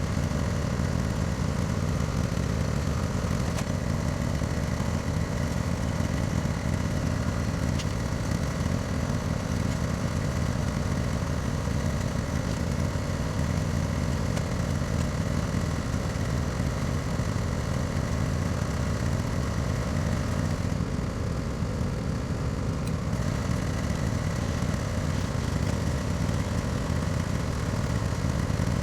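Zero-turn lawn mower's small engine running steadily at an even speed.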